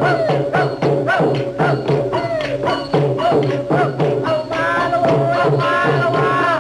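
Festive procession music: drum and hand-percussion strokes about twice a second under a bending melody, with a higher held melody line joining about four and a half seconds in.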